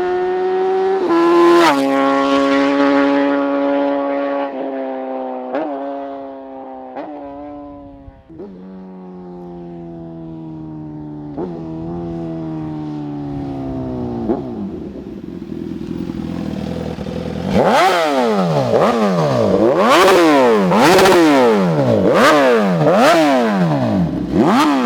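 Suzuki GSX-S1000's inline-four engine through a titanium aftermarket full exhaust with a GP Gold titanium muffler. First a long engine note sinks slowly in pitch, broken by several short throttle blips. Then, for the last seven seconds or so, come hard revs rising and falling about once a second, with sharp cracks between them.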